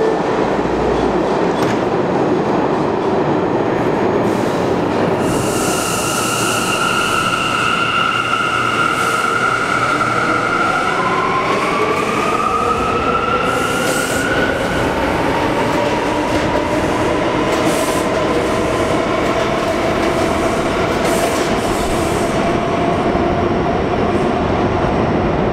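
Bombardier R179 subway train pulling out of the station and accelerating: a steady rumble of wheels on rail, with a whine that holds for a few seconds and then rises steadily in pitch as the train picks up speed.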